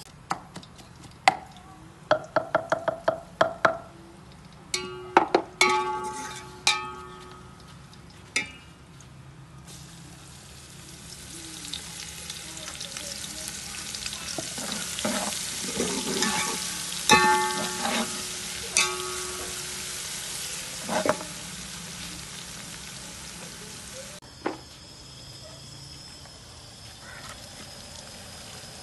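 Ginger-garlic paste and fried onions sizzling in hot oil in a large aluminium pot, the sizzle starting about ten seconds in and growing louder. A steel ladle stirs and clanks against the pot, with ringing metal knocks before the sizzle begins and again in the middle.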